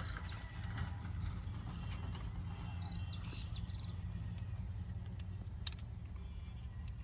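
Outdoor ambience: a steady low rumble, with scattered light clicks and a few short high chirps about three seconds in and again near six seconds.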